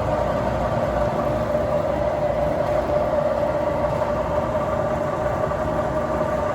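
Clausing 2285 variable-speed drill press running steadily on its three-phase motor, a constant hum with a steady whine that does not change.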